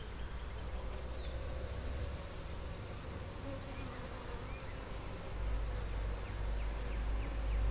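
Honeybees humming steadily from an open hive, with a low rumble coming in about five seconds in.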